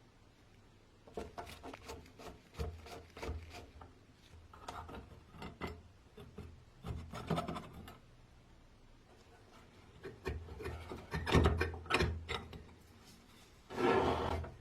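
Hand work on a vintage wooden coffee grinder: irregular bouts of scraping and rubbing with small knocks, in about five clusters, the loudest a little past the middle and a short dense scrape near the end.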